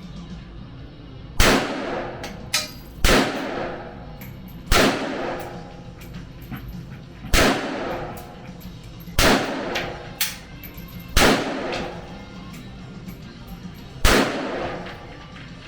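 Single gunshots fired one at a time, about seven loud ones a second or two apart with a couple of fainter shots between them, each echoing away.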